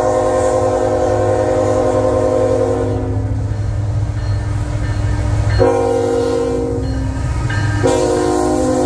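Air horn of an approaching CN GE ET44AC diesel locomotive sounding a long blast that ends about three seconds in, then after a short pause two more blasts in quick succession. A steady low rumble of the locomotives' diesel engines runs underneath.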